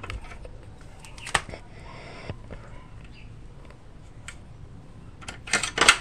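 Sharp metallic clicks and clinks of a hand tool worked against a motorcycle's front wheel and brake-disc hardware: one click about a second and a half in, a short scrape about two seconds in, and a loud cluster of clinks near the end.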